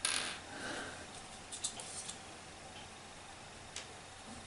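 Faint handling of small plastic clock-movement parts on a wooden desk: a brief rustle at the start, then a few light, irregular clicks.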